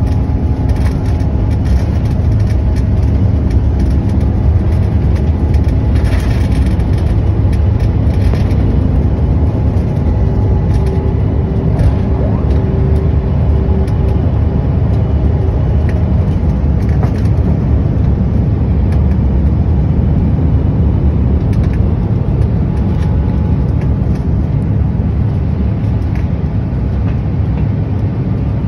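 Airliner's engines running at takeoff power, heard inside the cabin as a loud, steady roar with a deep rumble, as the plane rolls down the runway and lifts off.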